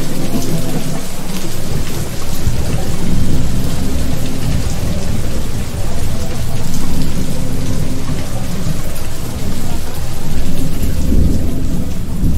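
Heavy rain falling steadily over a continuous low rumble of thunder during a thunderstorm.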